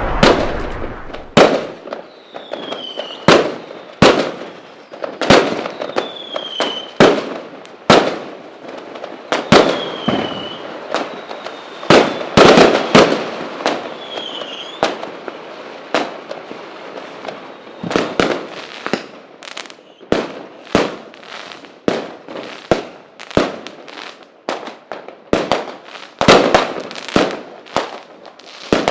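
Fireworks going off: a long run of sharp bangs at irregular intervals, some trailing into crackle, with a few short whistles that fall in pitch in the first half. The bangs come thicker and faster in the second half.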